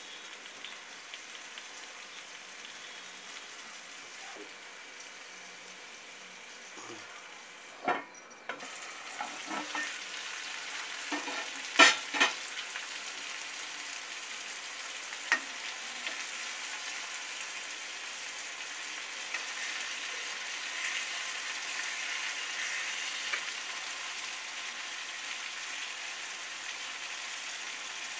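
Masala-coated small fish sizzling steadily in oil in an iron kadai, the frying growing louder after about eight seconds. A few sharp knocks come midway, the loudest about twelve seconds in.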